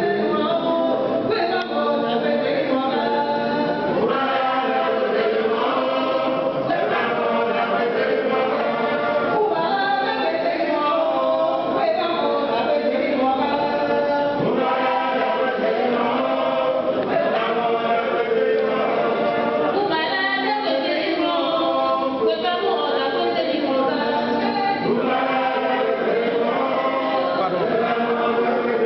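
A choir singing without accompaniment.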